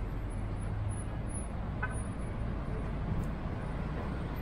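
City street traffic: a steady rumble of passing cars and buses, with a brief faint tone about two seconds in.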